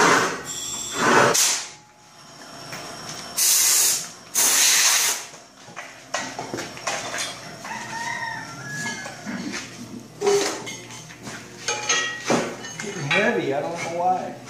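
Workshop noise around a log splitter: loud bursts of hissing in the first five seconds, then scattered metal clanks and knocks as the splitter's steel push block is slid by hand along its beam, with voices talking in the background.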